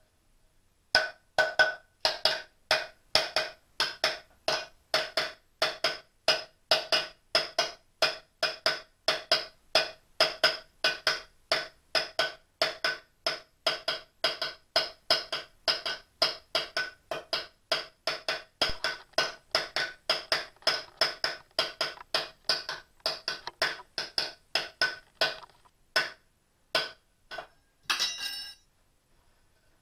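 Even, hollow wooden-sounding knocks at about three a second, each with the same clear pitch, kept up for some 25 seconds. They then slow to a few scattered knocks, with a brief rattle near the end.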